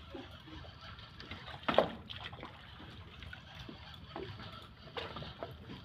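Sea water sloshing and lapping against the side of the boat, with one sharp knock about two seconds in.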